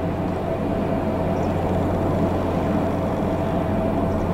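Steady low mechanical hum with a faint constant whine over it, unchanging throughout.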